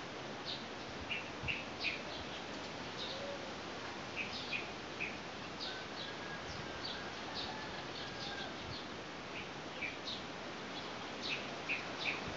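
A small bird chirping over and over in short, quick notes over a steady rush of wind.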